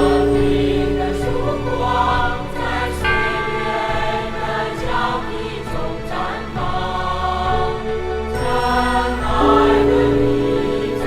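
Choral music: voices singing sustained notes over accompaniment, the chords changing every few seconds.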